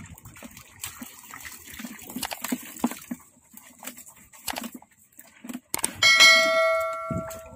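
A bright bell ding about six seconds in, ringing with several pitches and fading over about a second and a half: the notification-bell sound effect of an animated subscribe reminder. Before it, irregular small splashes and knocks of someone wading and netting in shallow water.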